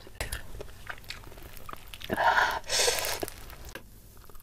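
Close-miked mukbang eating sounds: a person chewing fried tilapia and rice eaten by hand, with small wet mouth clicks and two louder noisy bursts about two seconds in.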